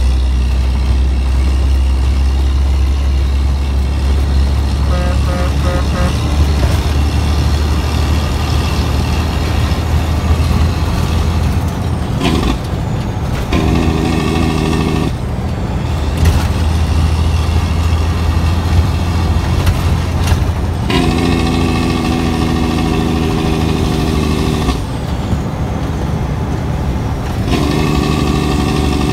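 Cabover dump truck's Detroit Diesel 12.7-litre engine running on the road with a steady deep drone. Three times a pitched tone with overtones sounds over it, for between one and four seconds each time.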